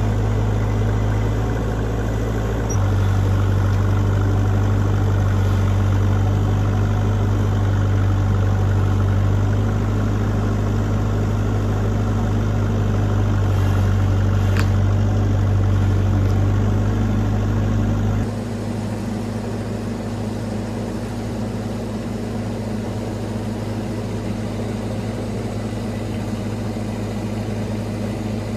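Bobcat E26 mini excavator's diesel engine running steadily; about 18 seconds in the sound drops abruptly to a quieter, steady hum.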